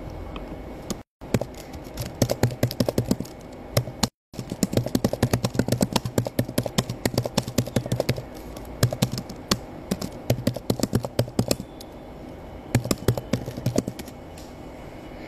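Typing on a keyboard: rapid key clicks in irregular bursts, with short pauses between them. The sound cuts out completely twice for a moment near the start.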